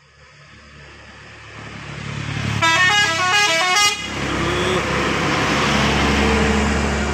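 A bus engine grows steadily louder as it approaches, then the bus's telolet horn plays a quick tune of rapidly stepping notes for about a second and a half. The engine stays loud afterwards.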